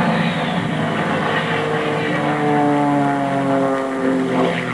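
Aerobatic biplane's 350-plus horsepower piston engine and propeller flying low past at racing speed, its pitch falling steadily as it goes by, over a steady rushing roar.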